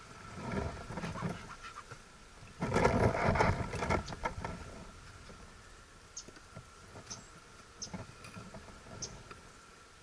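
Wooden beehive parts being handled: a loud scraping, knocking burst about three seconds in as the inner cover is lifted off and set aside, then a few light ticks. A faint, steady hum of honeybees runs underneath.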